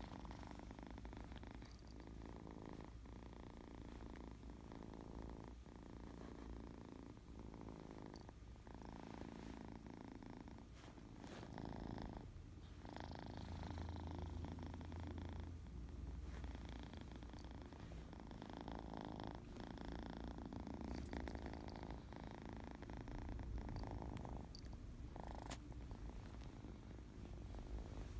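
A kitten purring continuously, the purr broken by short regular pauses and getting somewhat louder about halfway through.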